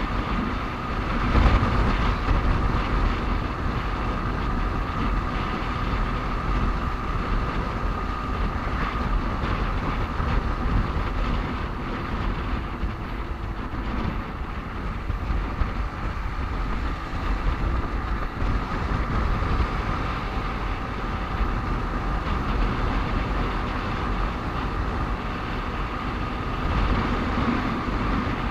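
Motorcycle riding noise in road traffic: a steady engine and road rumble with a faint, steady whine throughout. There is a brief louder swell about a second and a half in.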